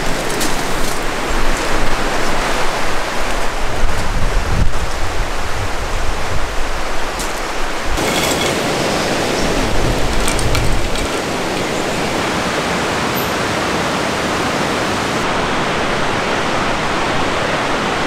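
Steady rushing of a rain-swollen mountain stream. Over the first several seconds an unsteady low rumble of wind on the microphone sits under it, then the rushing goes on smooth and even.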